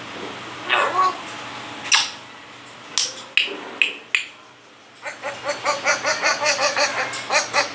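Grey parrot vocalizing: a handful of short, sharp calls, then from about five seconds in a fast run of repeated pitched notes, about six or seven a second.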